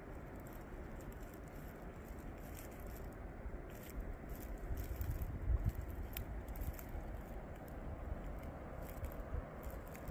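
Footsteps crackling and scraping along a leafy woodland trail over a steady outdoor noise, with a low rumble on the microphone building up around the middle.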